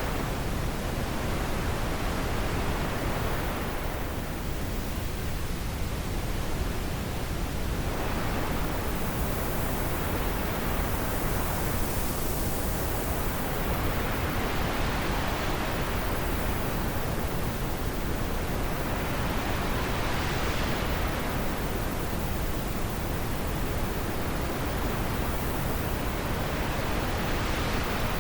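Wind blowing as a steady rush, its hiss swelling and easing slowly every several seconds.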